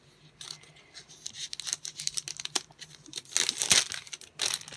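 Plastic wrapping around a diamond-painting canvas rustling and crinkling as it is handled, in irregular scratchy bursts that get loudest about three and a half seconds in.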